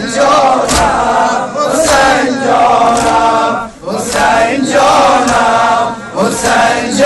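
A crowd of men and boys chanting a Muharram lament (nauha) in unison, with a rhythmic beat about once a second, most likely their chest-beating (matam).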